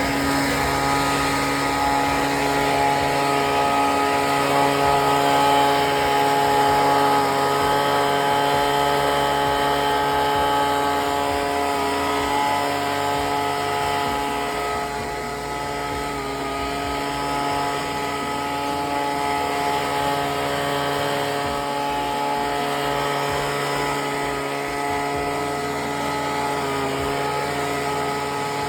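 Small gasoline engine of outdoor power equipment, revved up and running at a steady high speed, its pitch dipping slightly now and then.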